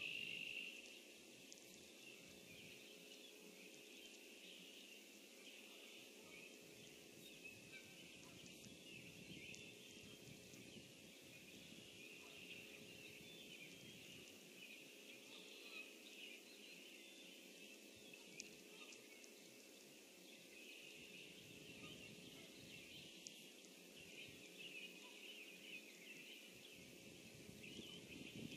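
Faint outdoor pond ambience: a distant chorus of many small, high-pitched chirping calls flickers on over a light hiss.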